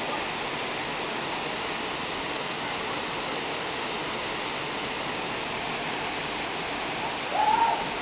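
Waterfall plunging into a rock pool, a steady rushing of falling water. Near the end a person's voice calls out briefly.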